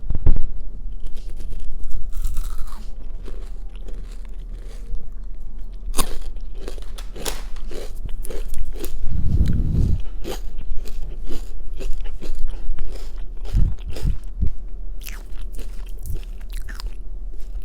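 Close-miked crunchy biting and chewing of food: a long run of sharp crunches with the mouth sounds of eating.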